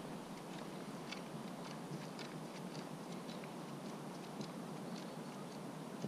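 Footsteps of a walker on the frozen lake, a quick uneven series of small crunches, two or three a second, over a steady hiss.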